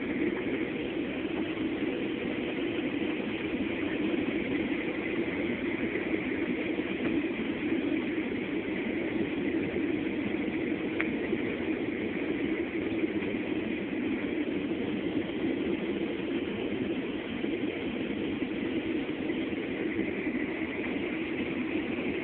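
Steady airliner cabin noise on descent: a constant rush of jet engines and airflow heard from inside the cabin.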